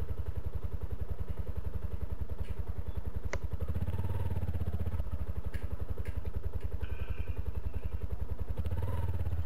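Yamaha Ténéré 250's single-cylinder engine running as the motorcycle rides off, a steady, even pulse of firing beats, with a couple of sharp clicks a few seconds in.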